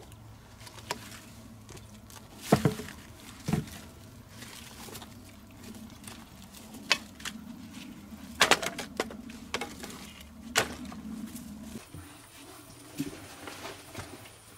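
Dry wood being handled and dropped: a series of sharp knocks and cracks, several in quick clusters, over rustling.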